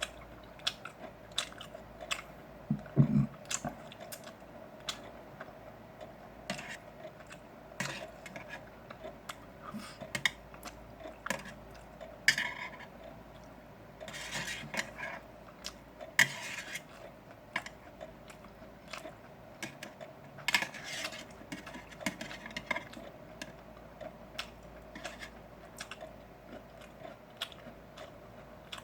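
A person chewing and eating grilled pork belly up close, with many short clicks and small knocks throughout and a few louder wet bursts of chewing.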